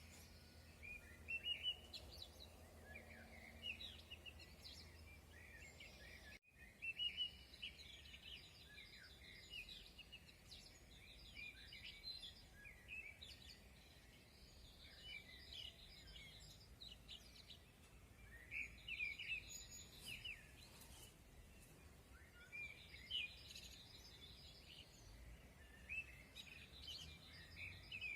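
Several small birds chirping and singing in an early-morning chorus: many short, overlapping high calls and trills, over a faint low rumble. The sound drops out for an instant about six seconds in.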